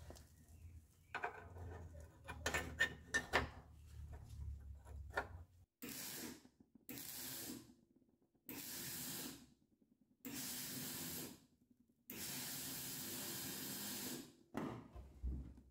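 Clinks and knocks of a sheet-steel reinforcement plate being fitted against a car's strut tower. From about six seconds in come four bursts of welding hiss, each about one to two seconds long, as the plate is stitch-welded on.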